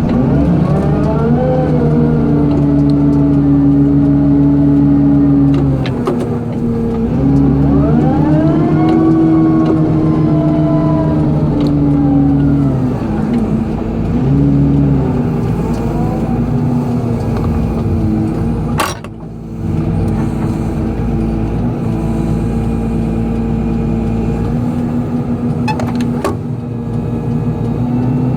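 Excavator's diesel engine running under load, its note dropping and picking up again several times as the hydraulics work, with whining tones that rise and fall over it. A sharp click about two-thirds of the way through.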